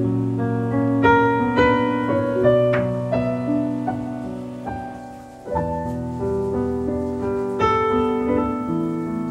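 Soft solo piano background music: a slow melody over held chords, with fresh chords struck at the start and about halfway through.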